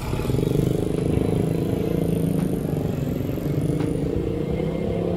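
Slow city traffic close by, with a nearby motor vehicle engine running steadily as a low hum, and a few faint ticks.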